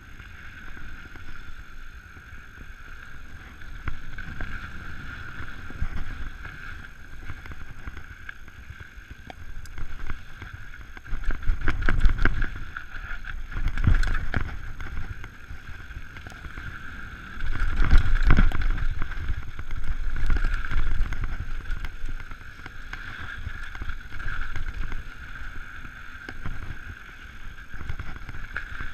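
Mountain bike descending a dirt trail at speed: wind rushing over the camera microphone and tyres rolling on dirt, with the Giant Trance 29 rattling and knocking over rough, rocky ground in two louder stretches partway through.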